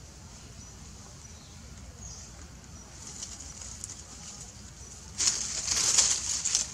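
Dry leaves and twigs rustling and crackling loudly for about a second and a half near the end, over a quiet outdoor background with faint, broken high chirps.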